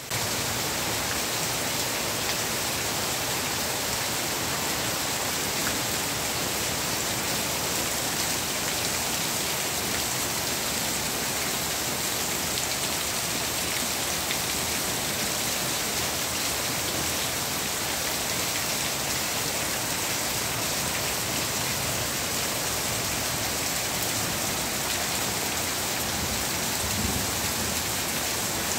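Heavy rain pouring steadily onto leaves, plants and ground, an even hiss with no letup.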